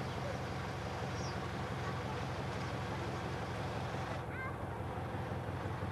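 A steady low mechanical hum, like an engine running.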